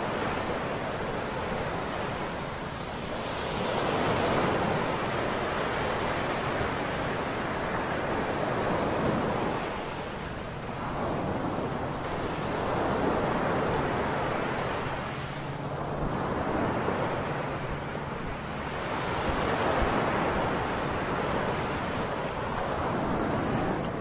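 Small waves breaking and washing up on a sandy beach, the surf swelling and fading every four to five seconds, with some wind on the microphone.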